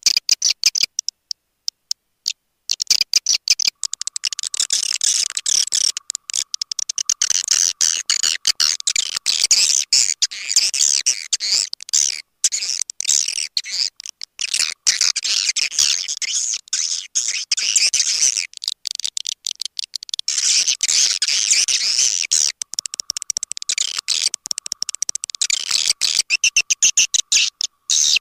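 Swiftlet lure call, the calling sound played to draw swiftlets into a bird house: a dense, rapid twittering chatter of high chirps and clicks. It opens with a few separate sharp clicks, then builds to the full chatter after about three seconds and eases off briefly twice.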